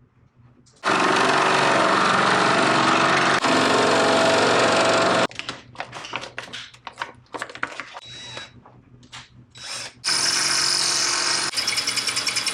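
Electric power tool working steel brackets. It runs steadily for about four seconds, starts and stops in short bursts, then runs again near the end.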